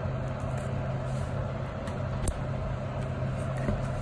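Steady low hum with a faint haze of kitchen noise, and a light click about halfway as a metal spoon touches the pot while a thick coconut-milk duck stew is stirred.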